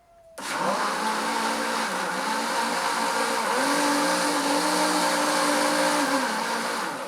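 Britânia BLQ 970 blender motor switching on about half a second in and running steadily with water in the jar, its pitch rising a little midway and dropping back, then cutting off at the end.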